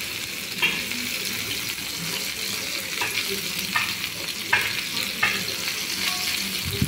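Flour-coated, marinated chicken pieces sizzling in oil in a grill pan: a steady frying hiss broken by about five sharp pops of spitting oil.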